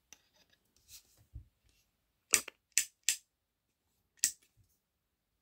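Morphée sleep device's gold rotary keys turned by hand to select a new theme and session: a few faint handling rubs, then four sharp clicks in the second half.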